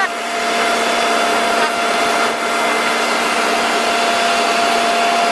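Factory trawler's machinery running with a steady whirring drone and a constant hum that does not change.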